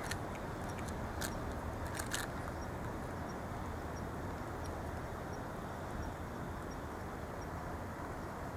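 Cats eating from foam food trays: a few sharp chewing clicks in the first two seconds, over a steady background rumble.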